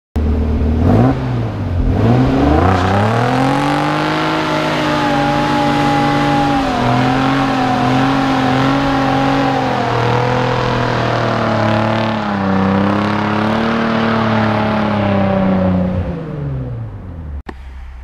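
Car engine held at high revs while the car slides with its tyres spinning and smoking, the revs wavering with the throttle. The revs dip and climb again in the first couple of seconds and fall away near the end.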